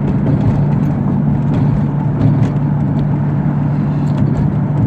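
Steady car running noise heard from inside the cabin while driving: an even low hum with road rumble underneath.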